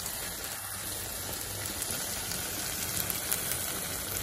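Mustard-greens saag frying in desi ghee in a cast-iron skillet: a steady sizzle, with a few faint ticks about three seconds in.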